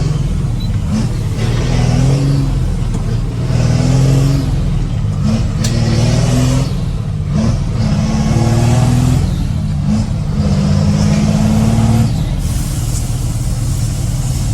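Ford Cargo dump truck's diesel engine pulling away and accelerating up through the gears, heard from the cab with the window partly open. Its note rises through each gear and drops back at each shift, about five times.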